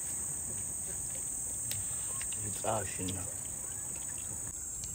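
Steady, high-pitched insect chorus in the bush. A short vocal call sounds once a little past halfway, with a few faint clicks.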